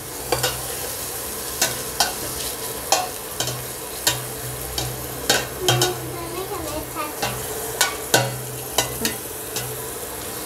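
Onion and green, red and yellow peppers sizzling in oil in a stainless steel pot while a metal spoon stirs them, clinking sharply against the pot again and again at irregular intervals.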